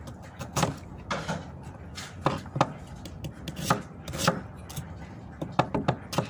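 Kitchen knife chopping on a cutting board in uneven strokes, roughly two a second.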